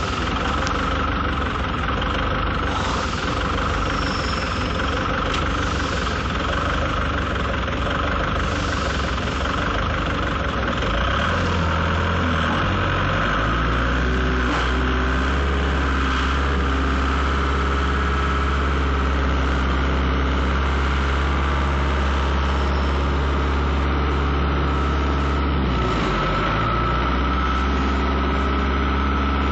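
Forklift engine running at a steady idle-like speed. About twelve seconds in it settles into a steadier, slightly louder low hum that holds, dips briefly near the end, then picks up again.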